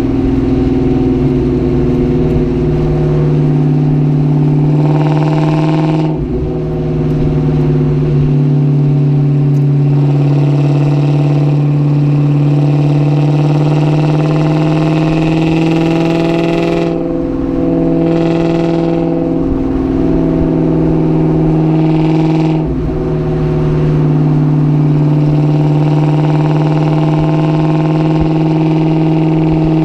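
2004 Ford Mustang GT's 4.6-litre V8 running at a steady pitch for long stretches. Its tone shifts and briefly drops three times: about six seconds in, around seventeen to nineteen seconds, and about twenty-two seconds in.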